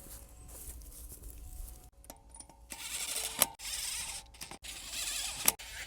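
A wheel being refitted to the hub and its lug nuts put on: handling noise with a few sharp metallic clicks.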